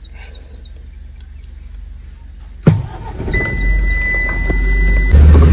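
BharatBenz truck's diesel engine is started about two and a half seconds in: it catches with a sudden burst and settles into a steady low running. A steady high electronic beep sounds for about two seconds, and the engine gets louder near the end.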